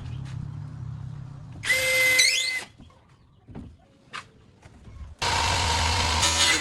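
Workshop power-tool sounds in short, abruptly cut clips: a low motor hum, then a brief loud burst with a steady whistle-like tone about two seconds in, a few light knocks, and a loud steady power-tool whir that starts suddenly about five seconds in.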